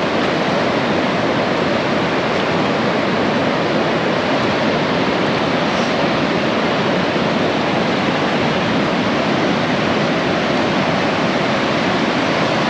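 Steady, even rush of surf breaking and washing along the beach.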